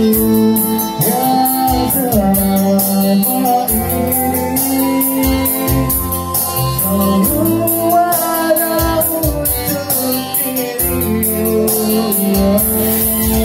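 Live band music: a man sings into a microphone over an electronic arranger keyboard and an electric guitar, with a steady drum beat underneath.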